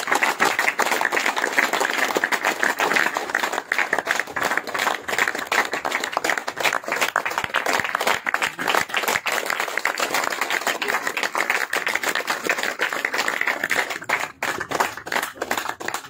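A crowd of men clapping steadily, many hands at once, thinning to scattered claps near the end.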